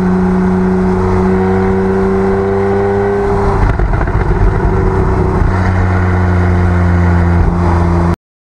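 Porsche 911 (991) flat-six engine heard at the tailpipes of its factory Porsche Sports Exhaust while driving. It runs as a steady drone that rises slightly in pitch, breaks briefly about three and a half seconds in, then holds steady again until it cuts off abruptly near the end.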